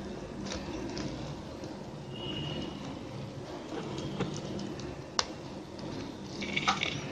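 Plastic basket wire rustling and clicking as it is pulled tight and wrapped around a basket handle, over a steady low hum. There is one sharp click about five seconds in and a brief squeaky scrape near the end.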